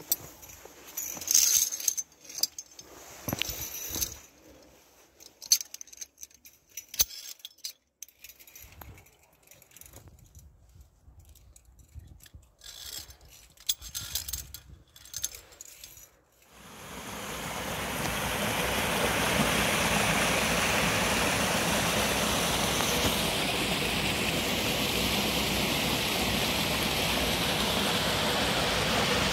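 Metal via ferrata carabiners clinking against each other and the steel safety cable, with scattered scuffs and rustles of steps on rock and dry leaves. About sixteen seconds in this gives way suddenly to the steady rush of a small mountain stream flowing over rocks.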